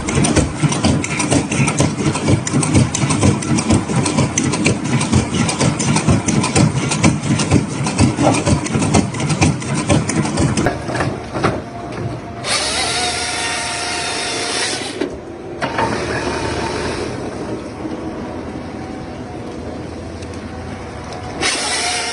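Fast, dense mechanical clattering, then a forestry harvester running, its head's chain saw cutting through a log in two loud stretches.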